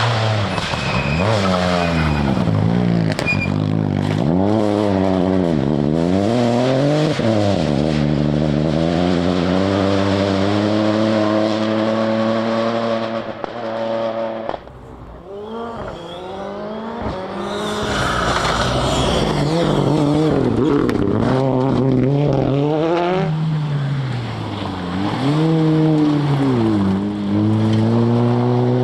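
Rally car engines at full throttle, the revs climbing and dropping again and again through gear changes and lifts. The sound dips sharply about halfway through, then another run of hard revving follows.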